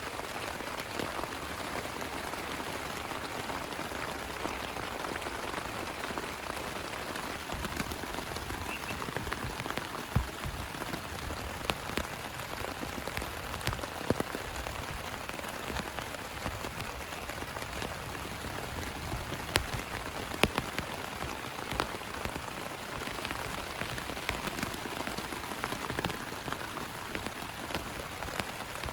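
Heavy rain pouring steadily, with a sharp, louder drop hit every few seconds.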